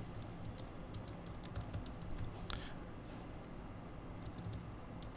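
Typing on a computer keyboard: light, irregular keystrokes.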